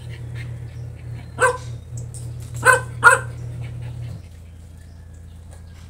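Dog barking three times: one bark about a second and a half in, then two quick barks close together near the three-second mark. A steady low hum runs underneath and stops about four seconds in.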